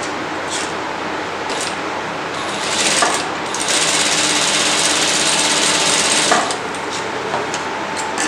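Industrial sewing machine stitching a dart. It runs faster and louder from about three seconds in, then stops about two seconds before the end.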